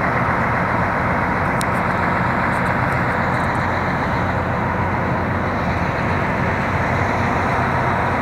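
Mount Washington Cog Railway's biodiesel locomotive running steadily while it stands at the summit with its coach.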